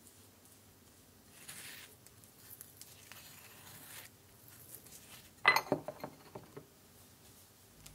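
Wooden spoon scraping and pressing mustard paste against the inside of a small ceramic bowl. A little past halfway the bowl clatters, loudest of all, as it is turned upside down onto the countertop, with a few smaller knocks after.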